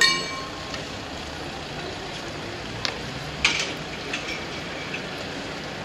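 Steady low rumble of the Ty42 steam locomotive drawing slowly towards the station, with the last strike of a ringing bell dying away at the start and a few sharp clicks about three and a half seconds in.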